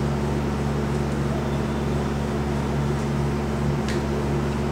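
A steady low hum made of several fixed tones over a noise haze, unchanging throughout.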